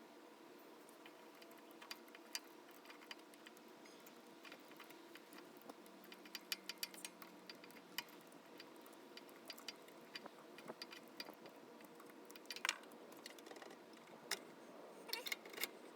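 Faint, scattered small metal clicks and taps in a few short clusters over a low steady hum: a mini bike's new clutch and the tools being handled while the clutch is fitted onto the engine shaft.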